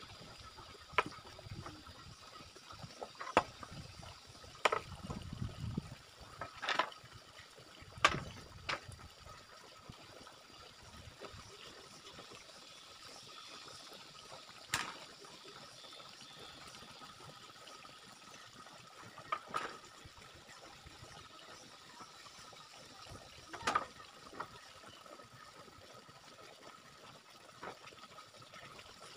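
Bamboo poles knocking against each other and against the bamboo frame as they are handled and laid down: scattered sharp knocks, several in the first nine seconds and a few more spaced out after that.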